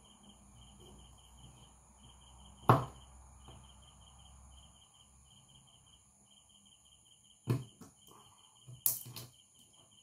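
Flat screwdriver prying open the plastic shell of a micro USB cable connector: sharp plastic clicks, the loudest about three seconds in and a few more near the end. A cricket chirps steadily in the background.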